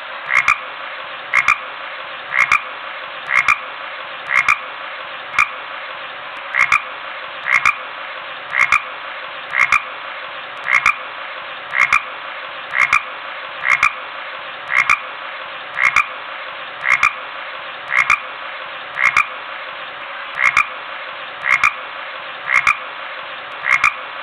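Dog making frog-like croaks: a short double croak about once a second, repeated steadily over a constant hiss.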